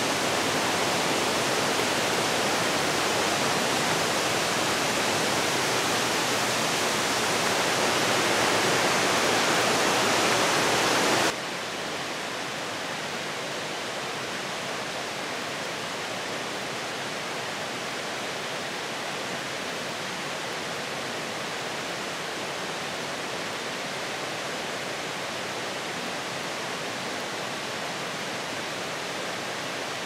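Steady rush of flowing water. It is louder at first, then drops suddenly to a quieter, even level about eleven seconds in.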